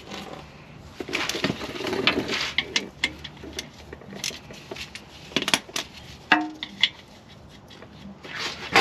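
Scattered metallic clicks and knocks of a socket wrench working on an automatic transmission's torque converter bolts, with a short squeak-like tone about six seconds in.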